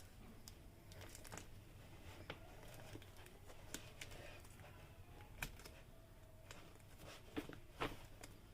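Faint handling of a gimbal's retail packaging being opened: scattered small clicks and taps with light crinkling.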